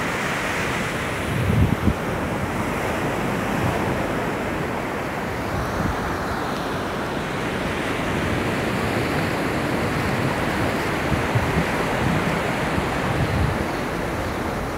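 Ocean surf breaking and washing up a sandy beach in a steady rush, with a few low wind buffets on the phone microphone about a second and a half in.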